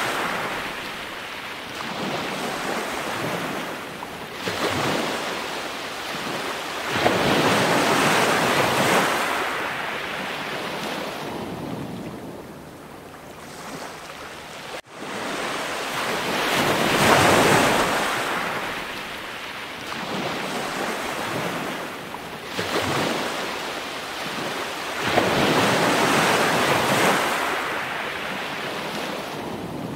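Ocean surf washing in and out, one slow swell every few seconds, breaking off for an instant about halfway.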